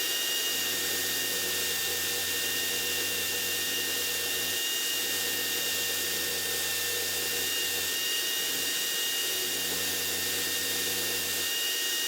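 Handheld electric power tool running steadily at high speed, its motor giving a constant high whine.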